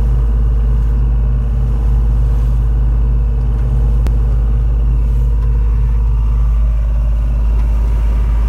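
A sailboat's inboard engine running at a steady speed, a constant low drone heard from inside the cabin, with a single faint click about four seconds in.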